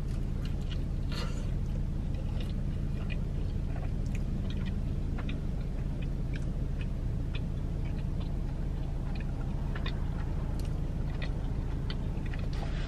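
A person chewing a bite of pepperoni pizza, with many small scattered mouth clicks, over a steady low hum.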